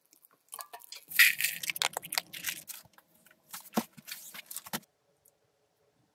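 Rough rustling and crunching handling sounds with a few sharp clicks, stopping about five seconds in.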